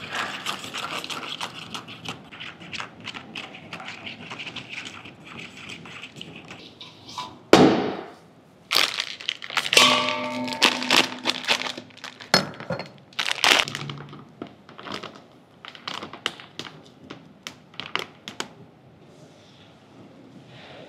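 Metal spoon stirring a liquid briskly in a plastic ramekin, a fast run of small clicks and scrapes. About halfway through come louder crackling and crinkling bursts as a plastic bag is handled, then scattered clicks again.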